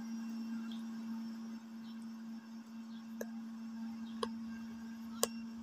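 A steady low hum, with a few sharp clicks about a second apart in the second half.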